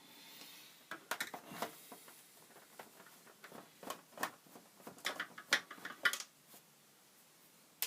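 Screwdriver undoing the screws on the underside of a plastic Commodore 64C case: irregular small clicks and scrapes of the tool and case being handled, with a sharper click near the end.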